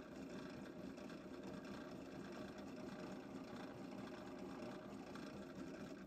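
Drill press running steadily while a center drill cuts into the head of a padlock case rivet.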